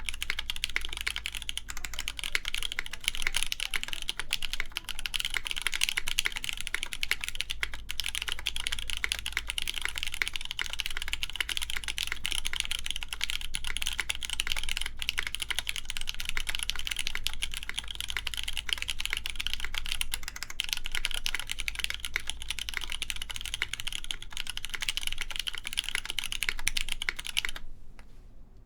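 Continuous typing on a custom mechanical keyboard with lubed Cherry MX Black Clear Top linear switches, a full polycarbonate plate and GMK keycaps: a dense run of keystrokes that stops near the end.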